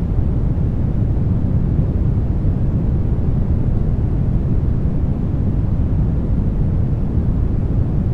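Steady brown noise: an even, deep hiss, strongest in the low end and thinning out toward the top, with no change.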